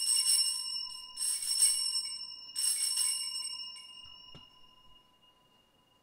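Altar bells (Sanctus bells) rung three times, about a second and a half apart, each shake a bright jingling whose ringing dies away over a couple of seconds; rung for the elevation of the chalice at the consecration.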